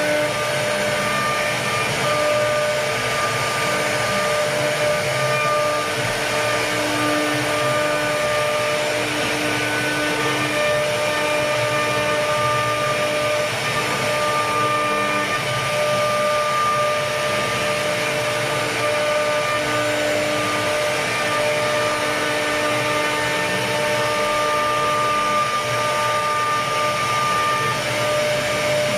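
CNC router cutting wood: the spindle motor runs with a steady hiss under several whining tones that come and go and shift in pitch as the cutter's load changes.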